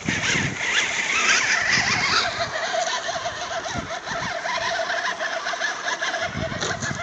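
Electric motor and gear whine of a radio-controlled scale crawler inching down a dirt slope. The pitch wavers up and down as the throttle is worked.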